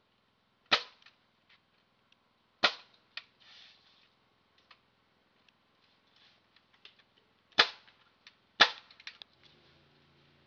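Pneumatic framing nailer firing nails into the wooden studs and bottom plate of a wall frame: four sharp shots, a pair about two seconds apart starting under a second in, then a pair a second apart about three quarters of the way through, with light clicks between them.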